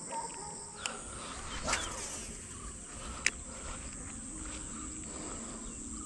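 Insect chorus chirring in a steady high buzz, with three short sharp clicks in the first few seconds, the loudest about three seconds in.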